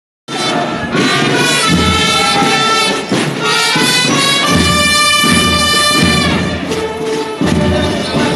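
Military band playing march music for a parade, with brass holding long notes.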